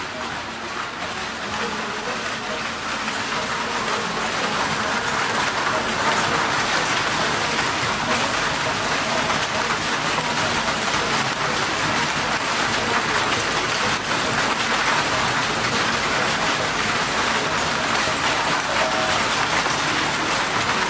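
Steady hissing din of a children's amusement ride running, growing louder over the first several seconds as the ride gets going, then holding level.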